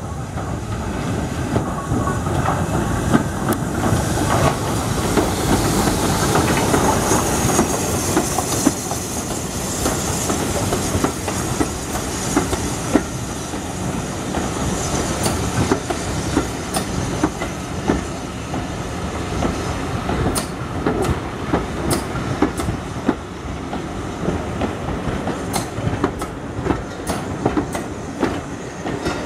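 Steam-hauled passenger train rolling slowly past over station pointwork: a steady rumble of carriage wheels with a hiss of steam in the first ten seconds or so, then irregular sharp clicks as the coach wheels cross rail joints and points.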